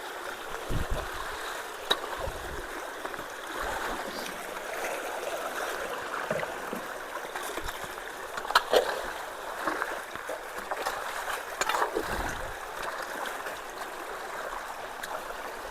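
Water rushing steadily through and around a partly clogged road culvert, with a few brief splashes.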